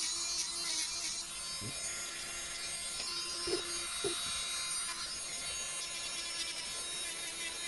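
Blackheart JD700 electric nail drill (e-file) running at high speed with a sanding band bit, giving a steady high whine as it grinds builder gel off a fingernail. It grinds louder briefly about a second in.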